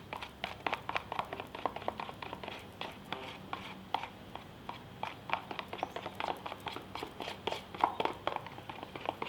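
A spoon stirring a glue, soap and water slime mixture in a bowl, clicking and scraping against the bowl in quick uneven strokes, several a second.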